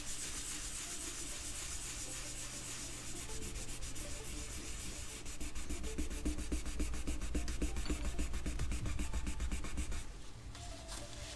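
A wad of tissue rubbed hard back and forth on a wooden desk top, scrubbing off spilled thread lock that has started to dry. The strokes quicken and grow louder through the middle and stop abruptly near the end.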